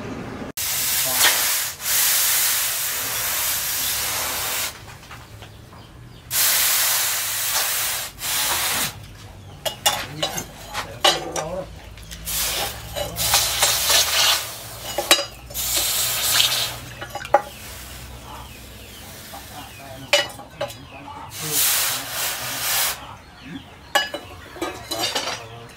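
Red-hot steel knife blade, forged from an old chainsaw, quenched in a trough of water: loud sizzling hiss in repeated bursts of one to two seconds as the blade is dipped and wetted, with small splashes and clicks between bursts.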